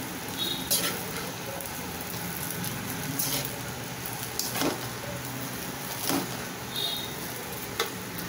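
Cooked basmati rice and vegetables being stirred in a metal wok with a slotted metal spatula: a steady soft sizzle, with the spatula scraping against the pan about five times.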